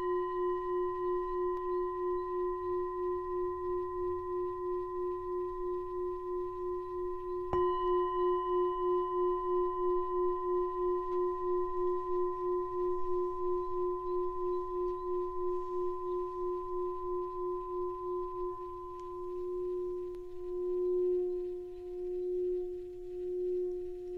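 Tibetan singing bowl ringing with a low, wavering hum after being struck with a wooden mallet. It is struck again about eight seconds in. Near the end the mallet is worked round the rim, so the tone swells and fades slowly.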